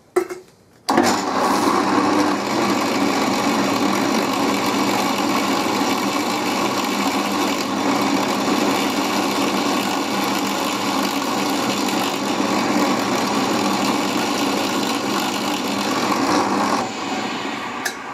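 Drill press motor running steadily while a small drill cuts a 1/16-inch cross hole through a free-cutting mild steel (EN1A) axle. It starts abruptly about a second in and dies away near the end.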